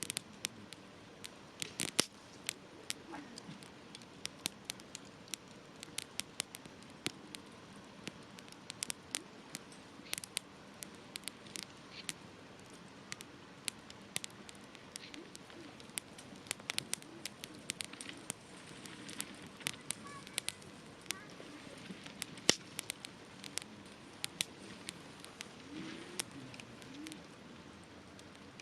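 Wood campfire crackling, with a steady run of irregular sharp pops and a few louder snaps, the loudest a little past two-thirds of the way through.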